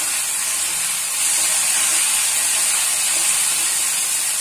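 Diced vegetables and tomato sizzling in hot oil in a steel kadhai: a steady high hiss that gets a little louder about a second in.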